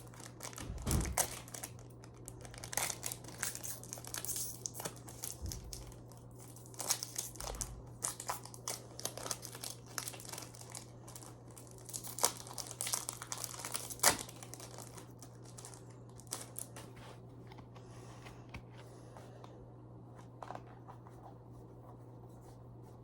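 Foil booster-pack wrappers crinkling and tearing as Pokémon card packs are opened and the cards handled, with a few sharp crackles; the handling thins out after about 16 seconds, over a steady low hum.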